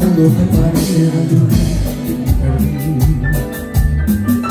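Live Latin band playing at full volume: electric bass, congas, guitars, keyboard and button accordion over a steady percussion beat, in a passage with little or no singing.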